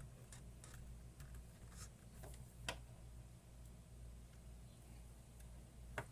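Faint scattered clicks and small taps from parts being handled on a bench, over a low, steady electrical hum.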